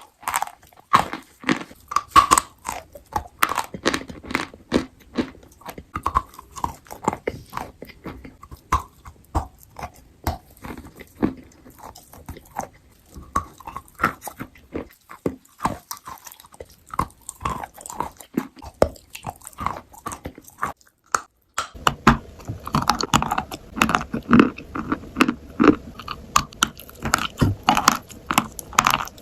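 Crunchy food being bitten and chewed close to the microphone: a dense, irregular run of sharp crunches. After a brief pause near the three-quarter mark, the crunching continues over a louder background.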